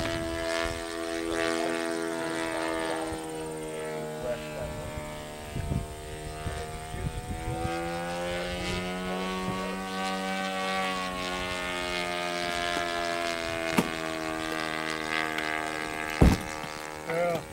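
Propeller-driven radio-controlled model aircraft flying overhead, its engine note steady, rising in pitch around the middle and then falling again. A sharp knock sounds near the end.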